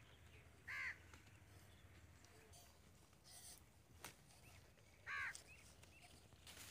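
A crow cawing twice, about four seconds apart, each caw short and single, with a single sharp click in between and a faint rural background.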